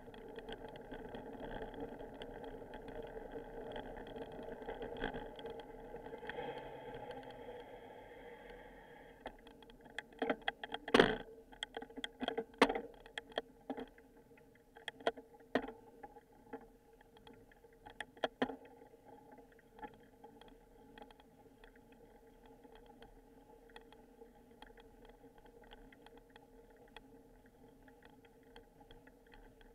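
Bicycle ride heard through a handlebar-mounted recorder: a steady hum of rolling and mount noise, then a run of sharp knocks and rattles from about ten to nineteen seconds in, the loudest two around eleven and twelve seconds, as the bike and camera mount jolt over bumps. After that comes a quieter hum.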